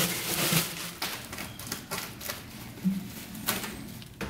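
Bubble wrap crinkling and crackling as it is pulled off an exhaust pipe, with a few sharp clicks scattered through.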